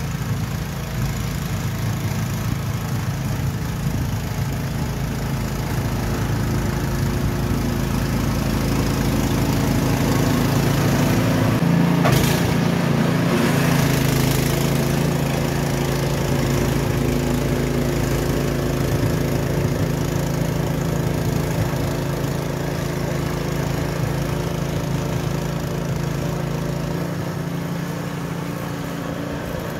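Craftsman 26-inch two-stage snowblower running steadily under load as it clears and throws snow. It gets louder for a few seconds in the middle, when heard from close behind the machine.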